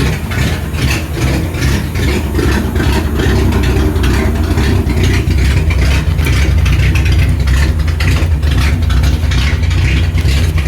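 Ford Ranchero engine idling steadily with a regular pulsing beat; the owner thinks it sounds like it has a misfire.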